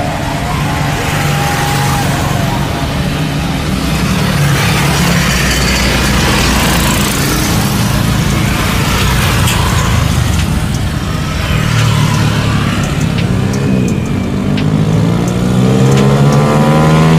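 Jet airliner engines running with a steady rumble on the runway. In the last few seconds the engine tone rises in pitch as thrust builds.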